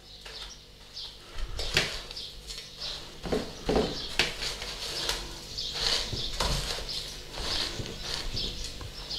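A hand pressing and patting a chicken breast into dry breadcrumbs in a stainless steel tray: irregular crunching and rustling of crumbs, with a few sharp ticks and knocks.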